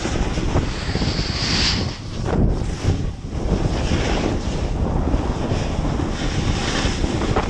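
Wind rushing over an action-camera microphone, mixed with the rough scraping hiss of sliding down steep snow.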